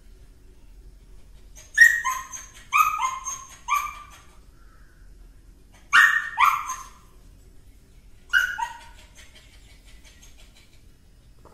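Small white spitz-type dog barking: short, high-pitched barks in three bursts of two or three, with pauses of about two seconds between bursts.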